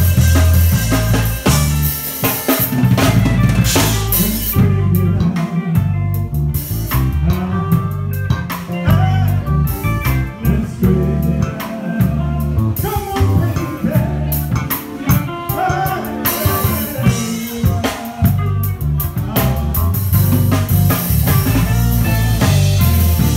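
A live band playing with no singing: a drum kit with snare rimshots and crash cymbals driving a steady beat under a guitar, over a heavy, continuous bass.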